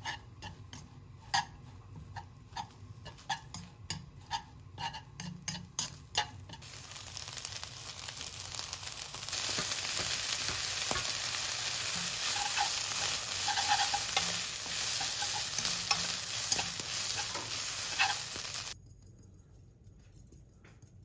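Seaweed stems stir-fried in a wok. Wooden chopsticks click and scrape against the pan for the first several seconds, then a frying sizzle builds up. It grows louder about nine seconds in as sliced onion and carrot go in, and cuts off suddenly near the end.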